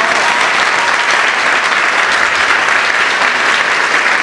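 Loud, steady applause from a theatre audience and the cast on stage, many hands clapping at once.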